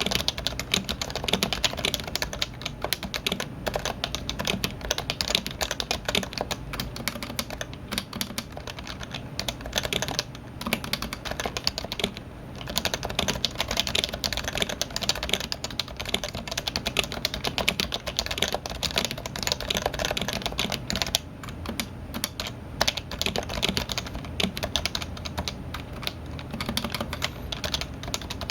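Fast, continuous typing on a Topre keyboard with electrostatic capacitive rubber-dome switches: a dense stream of keystrokes with short pauses about twelve and twenty-one seconds in.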